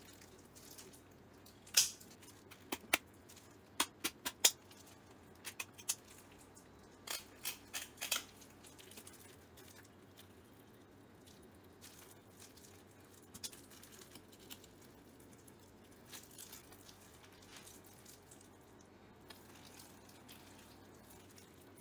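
Chef's knife cutting through a whole red snapper's bones on a wooden cutting board: a run of sharp crackling clicks in the first eight seconds or so, then only faint occasional ticks.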